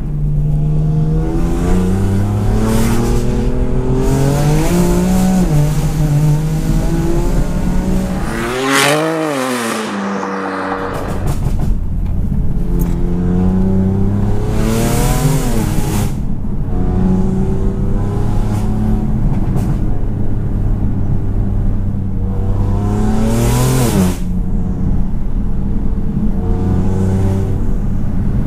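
BMW M4's tuned twin-turbo straight-six with an Armytrix exhaust, driven hard through the gears. Its note climbs and drops back with each shift, with several short, sharp rushes of noise between shifts. About nine seconds in it revs up, then falls away as the throttle closes, and picks up again a second or so later.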